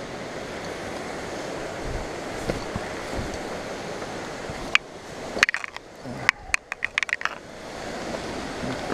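Steady rush of water from a creek and waterfall. About five seconds in comes a cluster of sharp clicks and knocks lasting two to three seconds, from footsteps and scrambling on loose rock-fall rubble.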